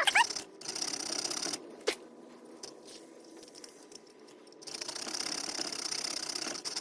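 Hand file rasping across an unhardened steel knife-blade blank in long, hissy strokes, with pauses between passes, a short squeak at the start and a sharp click about two seconds in.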